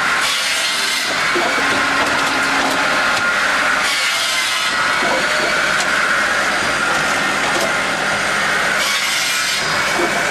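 A powered saw cutting through wood, running steadily with a constant high tone under the cutting noise. Louder surges of cutting noise come now and then.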